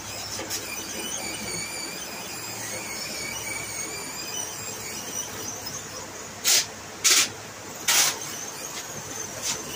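LED CO2 jet machines, with a steady thin whistling hiss, then three short loud blasts of gas in quick succession about two-thirds of the way in, and a weaker puff near the end.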